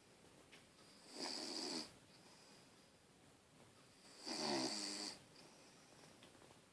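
Bichon frise snoring in its sleep: two snores, each under a second long and about three seconds apart.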